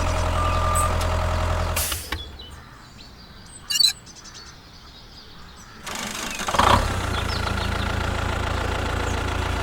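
Engine running steadily with a low drone, cutting off suddenly about two seconds in; a quieter stretch with faint bird chirps and one short sharp sound follows, then an engine starts up about six to seven seconds in and runs steadily again.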